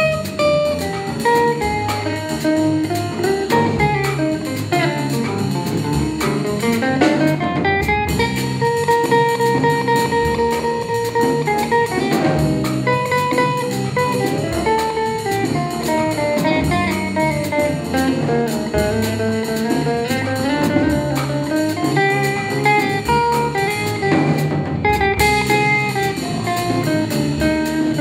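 Stratocaster-style electric guitar playing a jazz-blues solo of single-note lines, with one long held note about a third of the way in, over drums with a steady cymbal beat.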